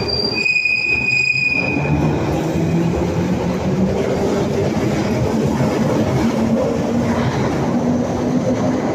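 London Underground Bakerloo line 1972 Stock tube train pulling out of the platform, its motor whine rising steadily in pitch as it speeds up over a heavy wheel-and-track rumble. A high steady tone sounds for the first couple of seconds.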